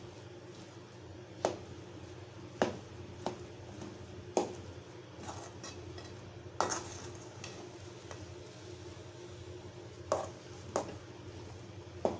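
Flat metal ladle stirring thick, cooked rava upma in a metal pot, knocking and scraping against the pot at irregular intervals of a second or two, over a steady low hum.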